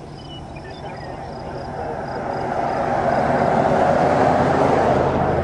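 Rushing noise that swells about two seconds in and stays loud, over a cricket chirping in a steady rhythm about three times a second.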